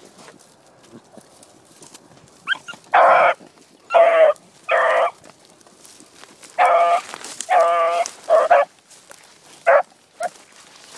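A dog barking, about eight loud barks in two bunches with a short pause between, then two shorter barks near the end.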